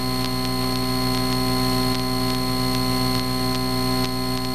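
Cessna 152's Lycoming O-235 four-cylinder engine and propeller droning steadily, heard inside the cabin.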